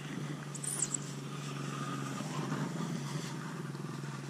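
An engine running steadily, a low even hum that holds one pitch.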